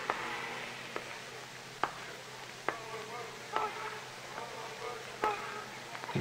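A marching band's drumsticks clicking out a slow, steady tempo, one sharp click a little under every second, over a faint murmur of voices in the stands.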